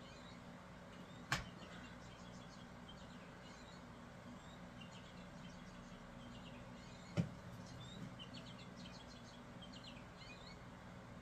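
Faint, scattered electronic bird chirps from a cat toy that plays hummingbird song, over a low steady hum. Two soft knocks, about a second in and about seven seconds in.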